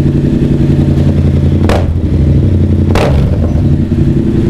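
Yamaha MT-07's 689 cc crossplane parallel-twin running loud and steady through an R11 aftermarket slip-on muffler, with two short sharp throttle blips a little over a second apart. The sound is boxed in by the enclosed shop, which the rider thinks colours the exhaust note.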